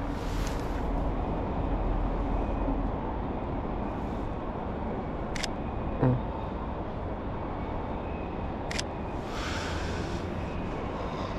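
Steady hum of street traffic, with two sharp clicks of a Sony a7iii mirrorless camera's shutter about three seconds apart and a short dull thump between them.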